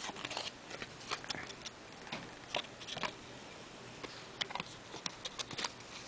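Light handling noise: about a dozen irregular small clicks and taps as small objects are picked up and moved about on a hard surface.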